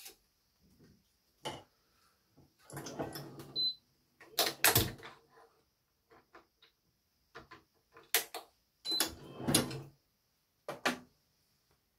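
Irregular clicks, knocks and short rattles of hands working a badminton racket stringing machine and its tools, with the loudest knocks around the middle and again about two-thirds of the way through.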